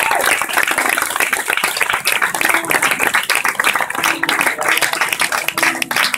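Theatre audience applauding, a dense, steady clapping from many hands.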